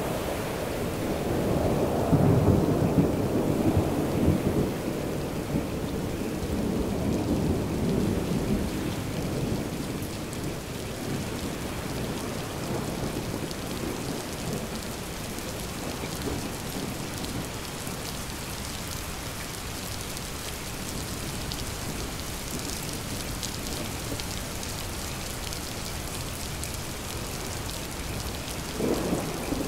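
Steady rain falling, with a long rolling thunder rumble that swells in the first seconds, peaks about two seconds in and fades out by about nine seconds. A fresh rumble of thunder starts right at the end.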